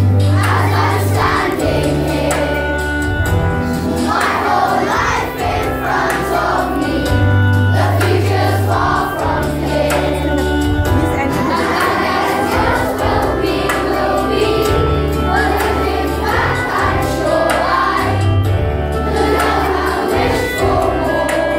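A group of children singing together as a choir, with instrumental accompaniment carrying a steady bass line that changes note every second or two.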